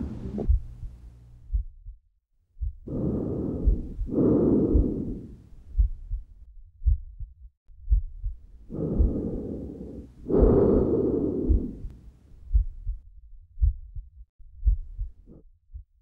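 Normal breath sounds heard through a stethoscope, bronchovesicular and then tracheal. There are two breaths, each a rushing inhale, a brief pause and a slightly longer exhale. A low heartbeat thumps steadily underneath.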